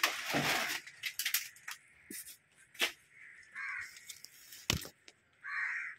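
Scattered sharp knocks and rustles of a long metal rod poking through debris and wood. Two short bird calls come about two seconds apart in the second half.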